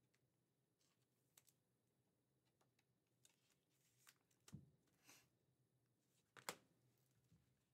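Near silence broken by a few faint plastic clicks and a short rustle as a trading card is slid into a soft sleeve and a rigid plastic top loader, the sharpest tap near the end.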